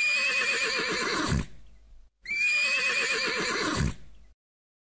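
A horse neighing: the same quavering whinny heard twice in a row, each about two seconds long and trailing off at the end.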